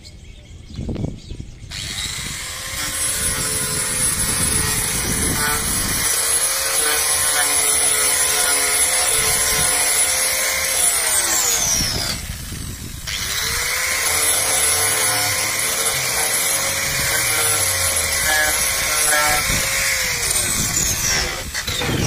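Electric angle grinder cutting into a plastic car bumper, running with a steady high whine. It spins up about two seconds in, winds down around twelve seconds in, then spins up again a second later and runs until it winds down near the end.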